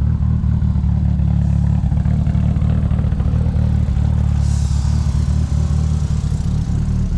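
Mitsubishi Lancer Evolution VIII's turbocharged four-cylinder engine running with a loud, steady low drone, a brief hiss rising over it about halfway through.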